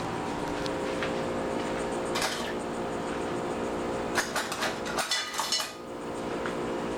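Dishes and cutlery clinking as food is handled, with a short clatter about two seconds in and a run of sharp clinks between about four and six seconds, over a steady background hum.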